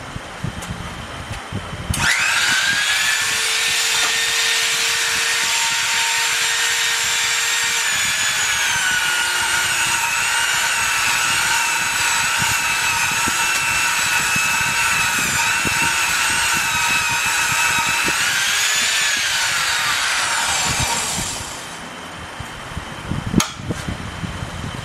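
Crankshaft grinder and belt polisher running, with a 400-grit belt and rouge polishing a crankshaft rod journal down to final size. It is a loud, steady motor whine that spins up about two seconds in and winds down with a falling pitch a few seconds before the end.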